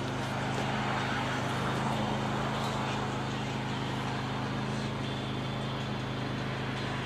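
Steady outdoor urban background noise with a constant low hum, even throughout, with no distinct events standing out.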